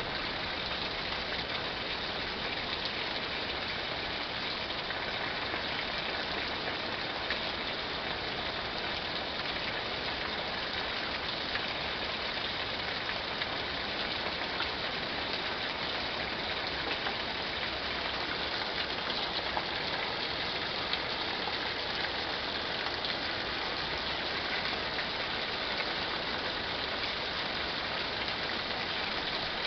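Steady thunderstorm rain falling: an even hiss with scattered ticks of drops striking.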